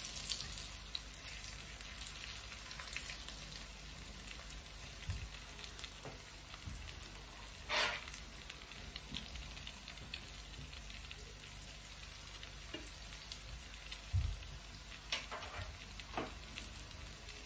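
Zucchini fritters shallow-frying in hot oil in a nonstick pan over low heat: a steady sizzle with scattered crackles and pops. A louder spit comes about eight seconds in and a soft low thump about fourteen seconds in.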